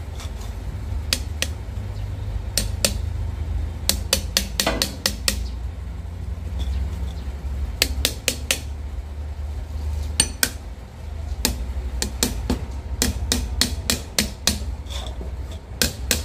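A metal wrench tapping on a steel hydraulic-cylinder gland to seat a new seal in its bore: sharp, irregular metallic taps, some in quick runs of several, over a steady low hum.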